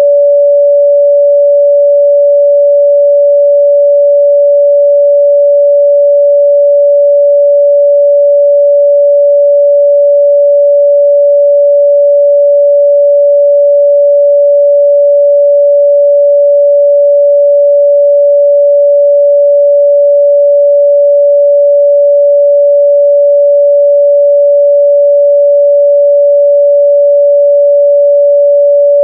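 A pure 574 Hz sine-wave test tone, held steady at constant loudness, used to check a speaker's or headphone's midrange response.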